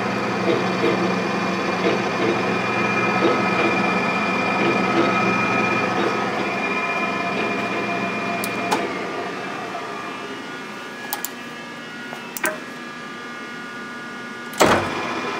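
South Bend G-26T engine lathe running under power with a steady hum of several tones, then switched off about nine seconds in and running down with falling pitch. A few sharp clicks of its controls follow, the loudest near the end.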